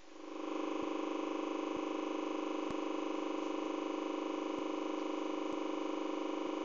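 Steady electronic buzz from a TV's speaker while it is tuned to a digital channel, fading in over about half a second, with faint clicks about once a second.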